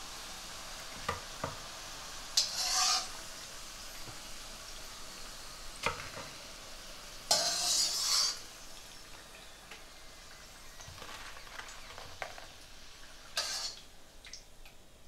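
Semolina golgappa puris deep-frying in hot oil in a steel wok: a steady sizzle that surges louder three times, with a few light clinks of a metal spoon against the wok.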